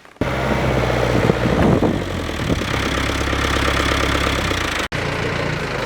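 An engine running steadily at a constant pace. It starts abruptly at the beginning and breaks off for an instant near the end.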